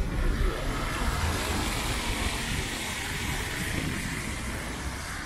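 A car passing on wet asphalt: tyres hissing through the water on the road over a low engine rumble, the hiss swelling early and slowly dying away near the end.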